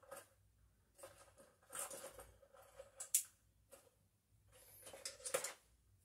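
Needle-nose pliers clicking and scraping against copper wire as it is bent into a loop for a switch terminal screw: a few short, quiet metallic clicks and scrapes, the sharpest about three seconds in.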